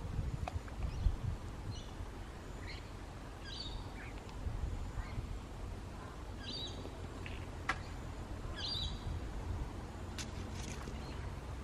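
Small birds chirping on and off with short high calls, over a steady low outdoor rumble, with a few sharp clicks.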